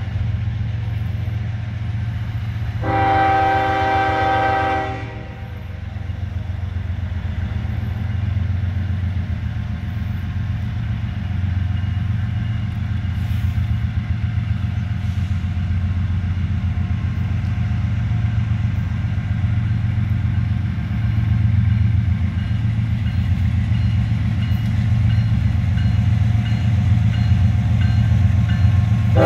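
Norfolk Southern diesel freight locomotive approaching, its engine rumbling steadily and low. The air horn sounds one chord blast of about two seconds, a few seconds in, and starts another just at the end.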